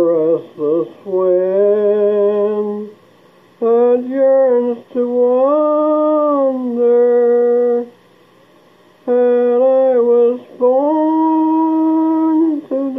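A man humming a slow tune in long held notes, in four phrases with short pauses between them.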